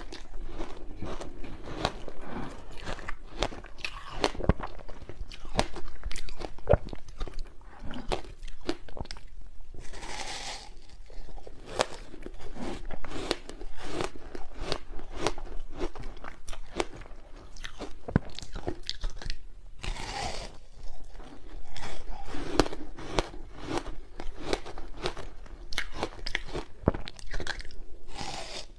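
Ice chunks coated in matcha powder being bitten and chewed close to the microphone: a dense, irregular run of crisp cracking crunches. Brief hissing sounds come about ten and twenty seconds in and again near the end.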